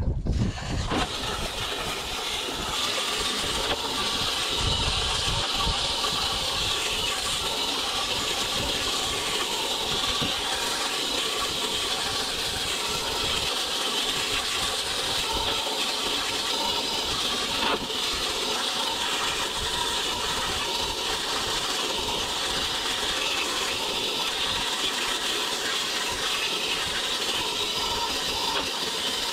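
Garden-hose spray nozzle jetting water into a furnace's sheet-metal blower housing and squirrel-cage blower wheel, a steady hiss and splash as the clogged wheel is washed out.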